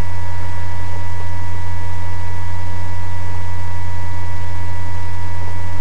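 Loud steady electrical mains hum with an even hiss and a few faint steady higher tones, picked up by the recording setup.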